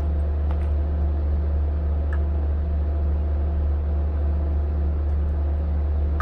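Steady low hum of a running machine, with a faint even throb a little above it, and a couple of faint small clicks.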